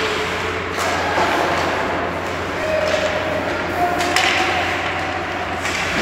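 Ice hockey play on a rink: a steady scraping wash of skates on ice with three sharp clacks of stick, puck or boards, under a few shouting voices.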